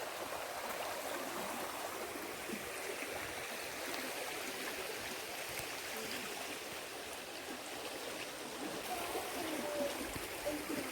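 Rain-filled stream running steadily, an even rush of flowing water.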